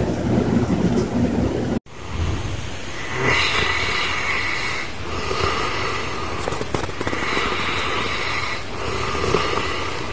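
A low rumbling noise cuts off about two seconds in. Then a sleeping dog snores in slow, regular breaths about every two seconds, each with a whistling tone.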